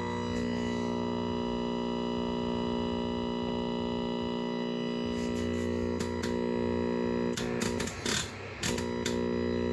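Steady, buzzing hum with many overtones from a 1969 Zenith portable black-and-white tube TV running after its filter capacitor was replaced. A few clicks and a brief crackle come near the end as the set is adjusted.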